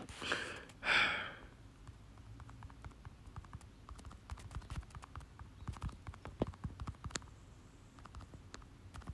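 Irregular light clicks and taps of typing on a computer keyboard, with a short louder hiss about a second in.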